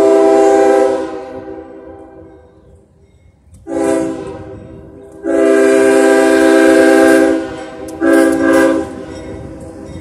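A CSX diesel locomotive's multi-note air horn sounding four blasts: a blast of about a second and a half at the start, a short one about four seconds in, a long one of about two seconds, then a short one near eight seconds. The low rumble of the approaching train runs underneath.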